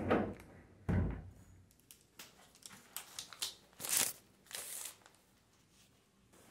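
Handling noise from a moving handheld camera: two dull thumps about a second apart, then scattered light clicks and rustling.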